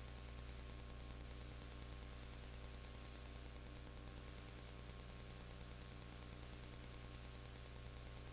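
Steady electrical hum with an even hiss over it, unchanging throughout, with no game sounds, crowd or voices heard.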